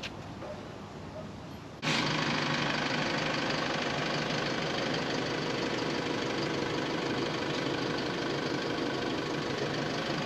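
A motor running steadily, as a continuous mechanical drone that cuts in abruptly about two seconds in.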